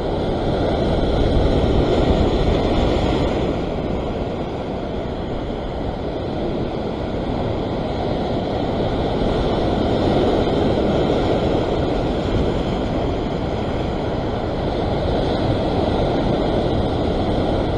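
Surf rushing and washing over the rock ledge, swelling and easing over several seconds.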